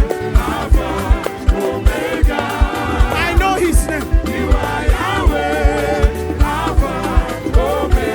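Live gospel praise music: singers over a band with a steady kick-drum beat.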